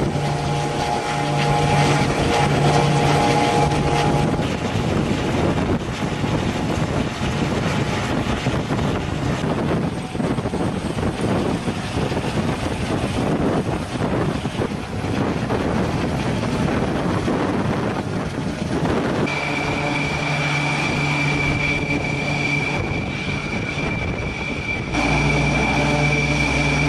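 Aircraft turbine engines and rotor running on a carrier flight deck: a loud, steady rush of engine noise with a droning hum. About two-thirds of the way through a steady high-pitched whine joins in, and near the end a deeper drone is added.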